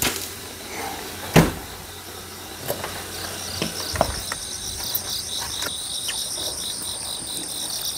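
Crickets chirping in a steady, pulsing chorus, with a few scattered clicks and one sharper knock about a second and a half in.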